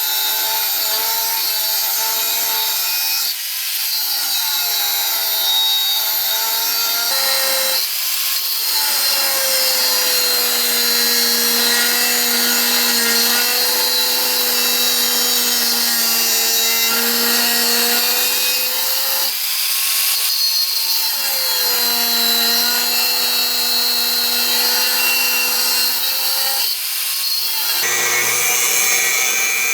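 Electric grinder working steel, with a steady high hiss over the motor's whine. The whine's pitch sags as the tool is pressed into the metal and recovers in the short breaks between passes.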